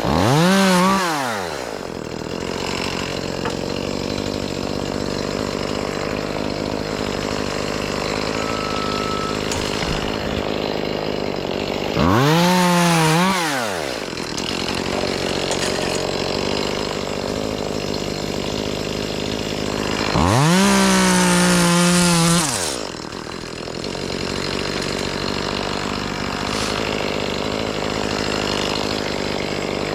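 Two-stroke chainsaw idling, revved up to full throttle and back down three times: about a second in, around twelve seconds in and around twenty-one seconds in, each burst lasting a couple of seconds.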